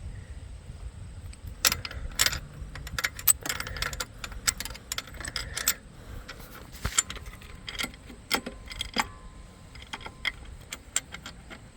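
Small metal parts and tools clinking and clicking irregularly as a kickstand bolt and its hardware are handled and worked into place.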